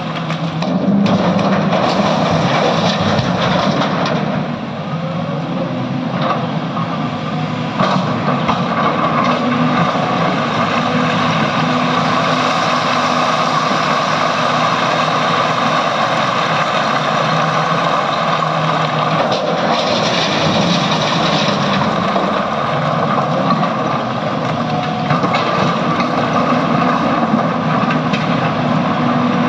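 Heavy diesel engine of a SANY excavator running under load as the machine works. The engine note eases off from about 4 seconds in and picks up again around 8 seconds, then holds steady.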